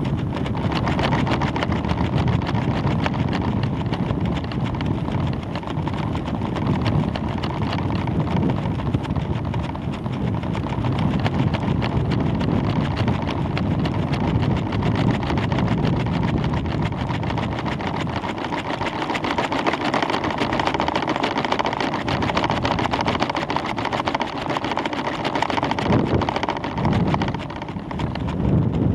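Wind rushing and buffeting over the microphone of a camera hanging under a rising weather balloon, a steady rumbling noise that swells and dips.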